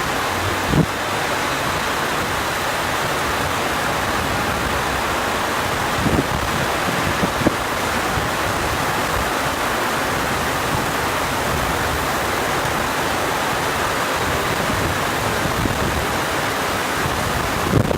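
Heavy rain pouring down in a steady, unbroken rush, with a few brief low thuds.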